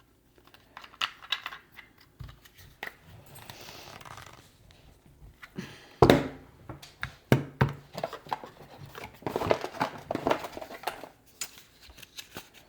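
Hard plastic parts of a car phone mount being handled and pushed together: irregular clicks, knocks and rattles, with a sharp knock about six seconds in and a short stretch of rustling around three to four seconds in.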